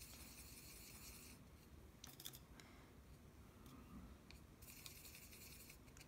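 Faint scrubbing of a paintbrush working blue watercolor in a plastic palette well, in two spells of about a second each, with a few light clicks between.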